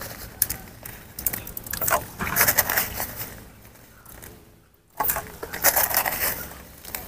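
Cooking salt being crushed before dissolving: irregular gritty scraping and crunching strokes in several bursts, with a brief silent break about two-thirds of the way through.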